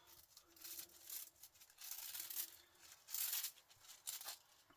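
Starter motor parts being handled and shifted, giving several short scraping, rustling sounds.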